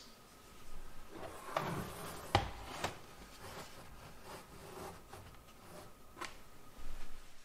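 Hands handling a plug-in energy meter and power strip: a few light clicks and knocks with faint rubbing between them, the loudest about two and a half seconds in.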